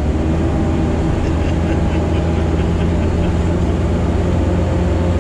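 Sherp amphibious ATV's diesel engine running steadily, heard from inside the cab while the vehicle drives through tall marsh grass.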